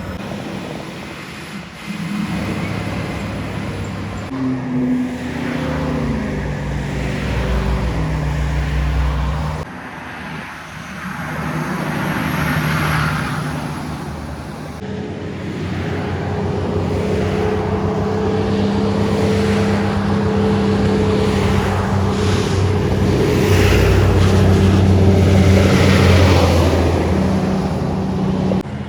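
Heavy diesel trucks passing on a highway hill, their engines changing pitch in steps as they shift gears. From about halfway through, a truck's engine pulls steadily with tyre and road noise building, loudest near the end.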